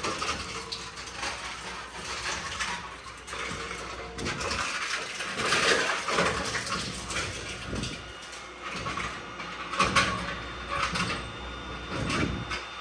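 Tomra T-53 reverse vending machine munching through a batch of cans: irregular clanking and rattling of metal cans over a steady machine hum, with louder clanks about six and ten seconds in.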